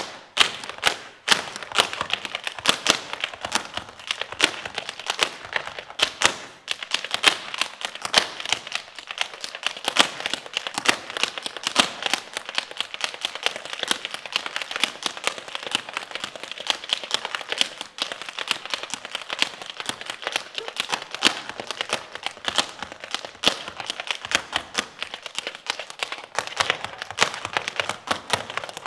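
Tap shoes striking a stage floor in fast, continuous runs of sharp clicks, an unaccompanied tap solo, with short breaks about a second in and about six seconds in.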